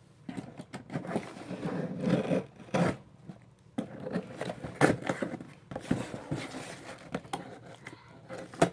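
A mailed box being cut and torn open: irregular scraping and ripping of tape and packaging, with crinkling and a few sharp clicks.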